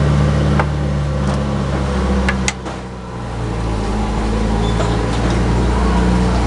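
Forklift engine running steadily, with a few sharp clicks. About two and a half seconds in, its sound drops briefly, then builds back up.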